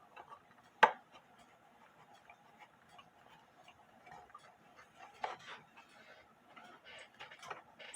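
Screwdriver and hands working screws out of a wooden wall-clock case: scattered light clicks, scrapes and knocks, with one sharp click about a second in.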